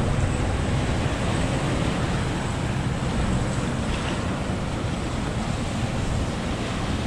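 Rough sea surf washing and breaking against the rocks, a steady noisy wash, with wind buffeting the microphone and adding a low rumble.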